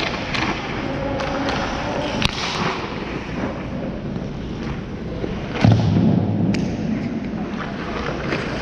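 A heavy thud about five and a half seconds in, among a few lighter knocks and clicks, over a steady low background noise.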